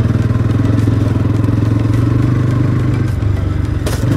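Bajaj Pulsar NS200's single-cylinder engine running at a steady low speed, its firing pulses clear. The engine note drops a little about three seconds in, and there is a short clatter near the end.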